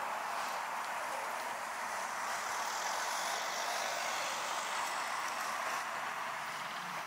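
Steady city street noise from road traffic: an even rush of passing cars and tyres, swelling slightly midway.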